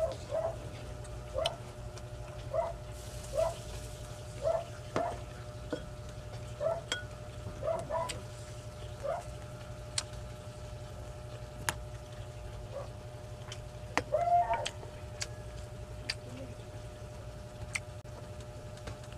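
A chicken clucking in the background, a short call about once a second, over a steady hum. Scattered sharp clicks come from the eating.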